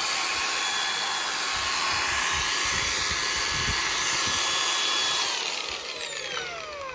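Makita DGA504 18V brushless 125 mm angle grinder running unloaded with a steady high whine. About five seconds in it is switched off and winds down in a long falling whine as the spindle coasts to a stop.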